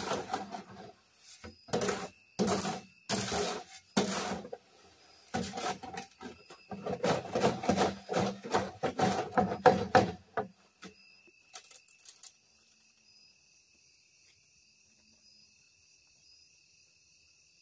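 A hammer striking the wooden posts of a shed frame: a series of heavy knocks, spaced out at first and then coming quickly, which stops about ten seconds in. Crickets chirp steadily underneath and are left on their own after the hammering.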